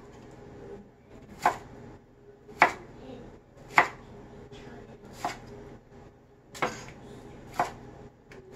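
Chef's knife slicing a tomato and knocking on the cutting board, six sharp chops spaced about a second apart.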